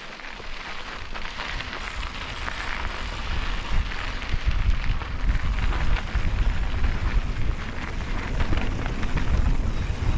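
Mountain bike tyres crunching and rolling over a sandy dirt trail, with wind rumbling on the microphone, growing louder over the first few seconds.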